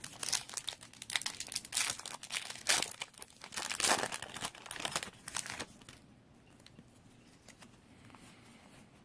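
A foil Yu-Gi-Oh booster pack wrapper being torn open and crinkled. The crackling runs for about six seconds, then stops.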